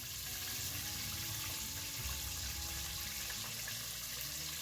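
Chicken deep-frying in hot vegetable oil: a steady sizzling hiss.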